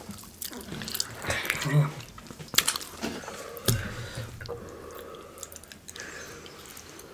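Close-miked wet eating sounds: a lime squeezed over a fish taco, then mouth smacks and chewing of cheese-sauced fries, with a few sharp clicks scattered through.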